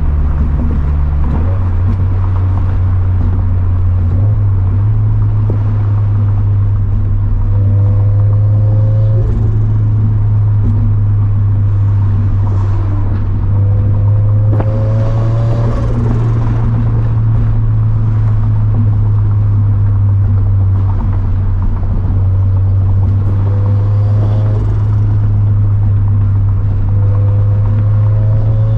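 Turbocharged flat-four engine of a 2013 Scion FR-S running while the car is driven, a loud, steady low drone. A short rising tone comes in four times as the revs climb.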